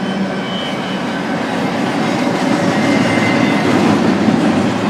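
Double-stack intermodal freight train's well cars rolling past close by: steady rumble of steel wheels on the rails, growing a little louder after the middle.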